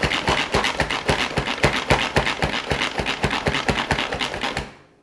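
Pull-cord manual food processor chopping onion: the cord pulled again and again, making a fast, even run of clicks as the blades spin. It stops a little before the end.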